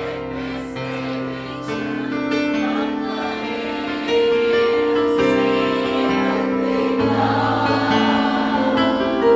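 Malayalam Christian worship song: sustained held chords that change every few seconds, with singing.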